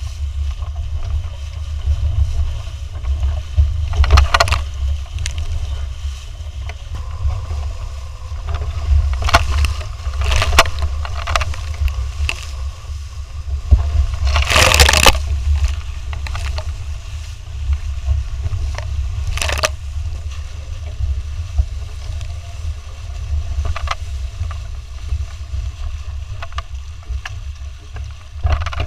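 Wind buffeting the microphone with a constant low rumble while water rushes and hisses past the hulls of a Hobie Cat 14 catamaran sailing at speed, with several louder splashes of water at intervals.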